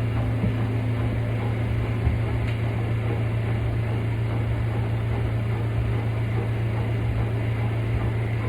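Spin-dryer basket of a Kuppet portable twin-tub washing machine spinning fast, its motor giving a steady low hum while it spins the water out of washed clothes. A small tick about two seconds in.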